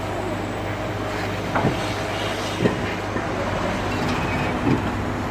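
Steady low engine hum under a wash of background noise, with a few sharp knocks.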